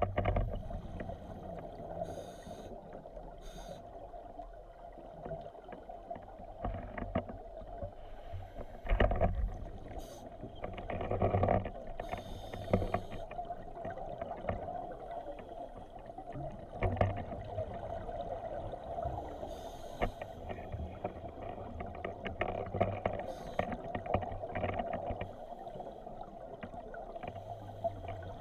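Muffled underwater sound through a camera's waterproof housing: scuba divers' regulators releasing exhaled bubbles in irregular swells every few seconds, over a steady hum.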